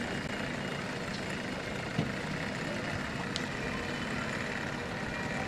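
Steady low drone of a boat engine running, with one short knock about two seconds in.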